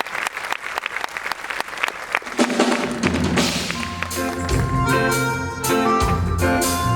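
Audience applauding, with the live band coming in about halfway through: held chords first, then drum kit and low bass notes joining a little later and carrying on under the clapping.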